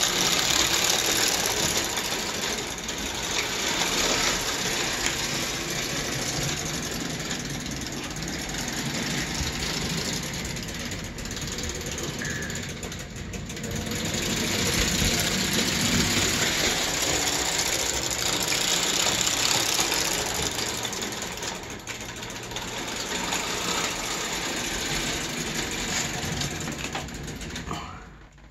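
1911 Ives No. 25 clockwork O gauge locomotive running on tinplate track: the wound-spring clockwork motor whirs and its gears rattle as the train runs. The sound swells and fades in level and drops away near the end.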